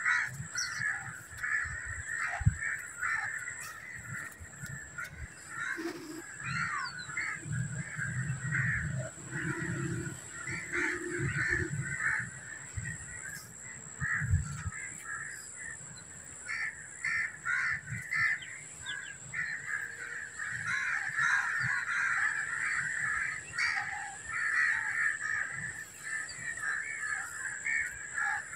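Many birds calling and chattering at once, a continuous dense chorus of short overlapping calls.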